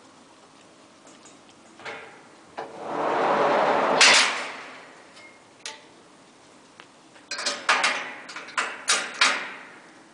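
A rattle that swells for about a second and a half and ends in a loud bang about four seconds in, then a quick run of about six sharp knocks near the end, like a door or metal fittings being handled.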